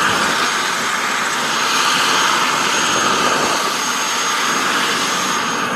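Helicopter running, a steady loud rush of rotor and turbine noise with a faint high whine.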